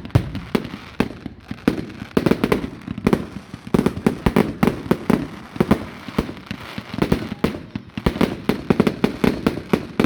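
Fireworks display: a dense, continuous barrage of shell bursts and sharp cracks with rumbling booms, several reports a second.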